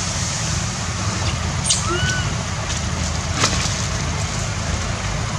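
Steady low rumble of a motor vehicle engine running nearby, with a couple of short high chirps about two seconds in and a sharp click a little later.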